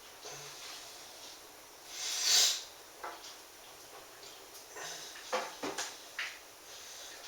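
Kitchen handling while draining a can of black beans: a short hissing rush about two seconds in, then several light knocks and clicks of the can and utensils.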